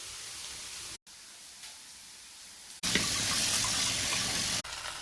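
Water running from a tap, an even hiss in short edited segments, loudest for a couple of seconds in the second half.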